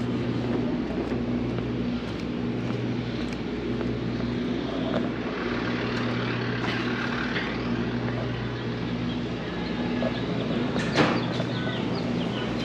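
An engine running steadily with a low hum, with a single sharp click near the end.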